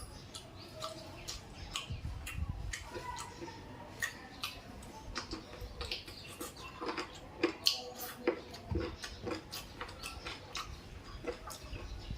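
A person eating a chicken leg piece close to the microphone: irregular wet clicks and smacks of chewing.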